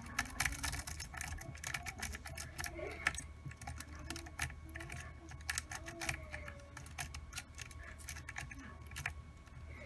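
Rapid, irregular metallic clicking and scraping of a triple-peak rake worked in and out of a Kwikset five-pin tumbler deadbolt held under tension, raking the pins.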